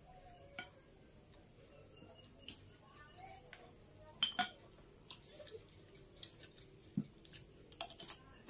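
Metal spoon clinking and scraping on a plate while eating, in scattered light taps, the loudest a pair a little after four seconds in and a few more near the end.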